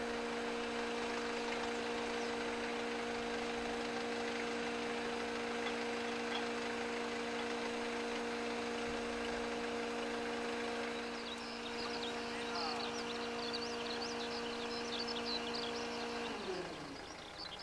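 A small motor, probably the tug towing the helicopter, hums steadily on several held tones, then winds down with falling pitch and stops about sixteen seconds in. Faint bird chirps come in during the second half.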